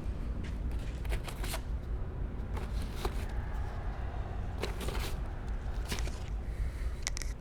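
A scatter of short clicks and knocks over a steady low rumble.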